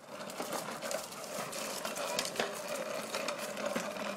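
Hard plastic wheels of a child's ride-on tricycle rolling over a concrete sidewalk: a steady grinding rattle with scattered clicks, which picks up as the tricycle sets off.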